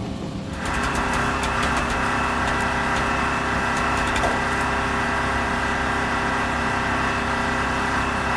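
Steady machine noise starting about half a second in: a loud hiss with several fixed whining tones and a few sharp clicks over the first few seconds.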